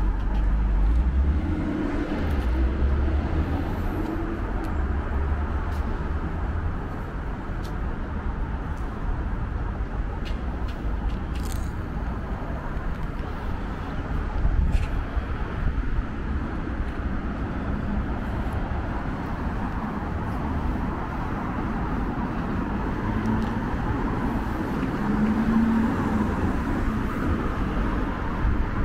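City street traffic: cars going by on the road with a steady low rumble, swelling a few times as vehicles pass.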